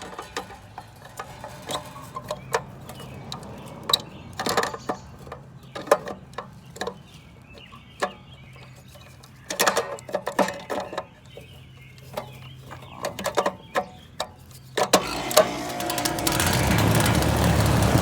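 Scattered clicks and knocks over a faint steady hum, then about fifteen seconds in an air conditioner's outdoor condensing unit starts up, its freshly replaced condenser fan and compressor settling into a steady rush of air with a low hum that grows louder.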